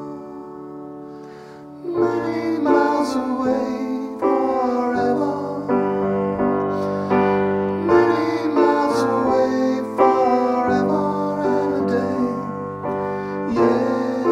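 Grand piano playing an instrumental passage between sung verses: a held chord fades for about two seconds, then the piano comes back in with a steady run of changing chords.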